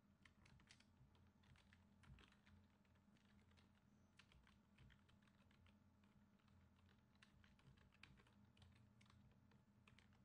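Faint typing on a computer keyboard: quick, irregular keystrokes, over a faint low hum.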